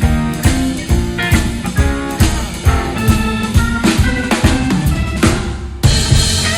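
Live band of Hammond B3 organ, electric guitar and drum kit playing a blues shuffle, the drums hitting on a steady beat. A cymbal crash comes near the end, with the band holding a ringing chord after it.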